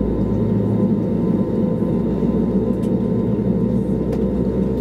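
Airbus A320neo cabin noise over the wing with the engines at low taxi power: a steady hum and low rumble. There is a faint click about four seconds in.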